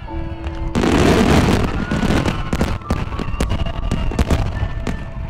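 Fireworks display: a loud bang about a second in, followed by rapid cracks and pops of many shells bursting.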